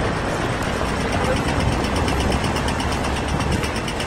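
A Siemens Combino tram moving slowly through a city intersection amid street traffic noise, with a steady low rumble and a fast, regular ticking.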